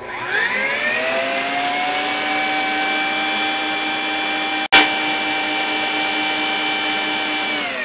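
Electric stand mixer running at high speed, its wire whisk beating creamed butter, sugar and eggs for cake batter. The motor whine rises as it spins up at the start, holds steady, cuts out with a sharp click about four and a half seconds in, and starts to fall near the end.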